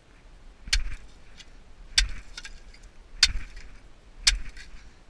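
Four sharp knocks, evenly about one every 1.2 seconds, like a tool striking to break chunks loose.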